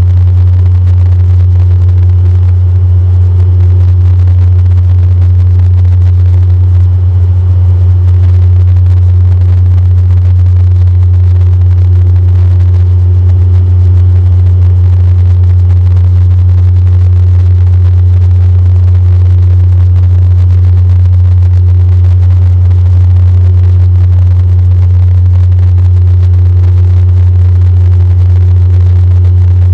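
Cabin drone of a DHC-8-Q400 turboprop airliner heard at a seat beside the propeller during the climb-out. It is a loud, steady low hum from the propeller, with fainter steady higher tones and a hiss of airflow above it.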